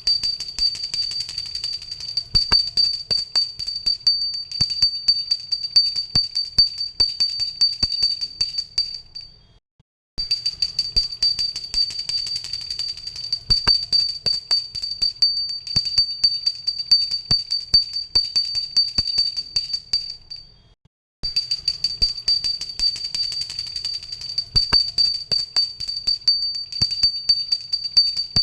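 Pooja hand bell rung rapidly and continuously, its clapper striking several times a second over a steady high ringing tone. The ringing fades and stops briefly twice, about ten and about twenty seconds in, then starts again.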